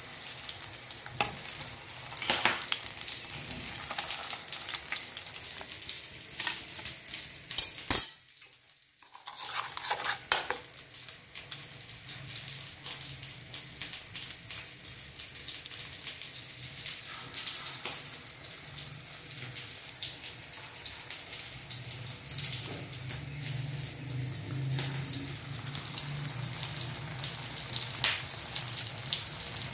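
Besan-battered egg halves deep-frying in hot oil: steady sizzling with scattered sharp crackles, broken by a short drop-out about eight seconds in.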